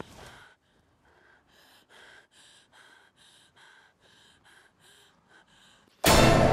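A woman breathing in faint, quick, short breaths, about two a second, out of breath and frightened. Near the end a sudden loud hit cuts in and rings on.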